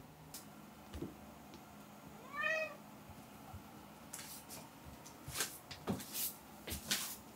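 Tortoiseshell cat gives one short meow that rises and falls in pitch, the call of a cat lonely for company. Several faint taps and clicks follow near the end.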